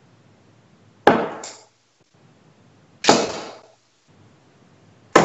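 Darts striking a Winmau Blade 5 bristle dartboard, three sharp hits about two seconds apart, each with a short fading ring.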